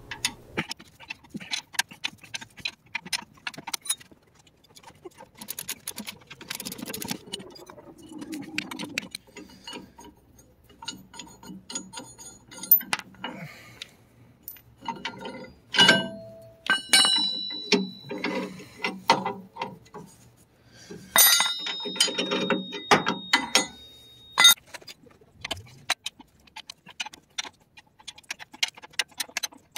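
Hand ratchet clicking as it backs the U-bolt nuts off a truck's rear leaf-spring axle, mixed with sharp metal clinks and knocks of the nuts, U-bolts and tools, one ringing briefly about three quarters of the way in.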